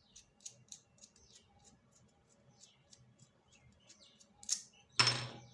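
Light clicks and squeaky handling noises of plastic packaging as a boxed action camera is unpacked, with a louder short rustling scrape near the end.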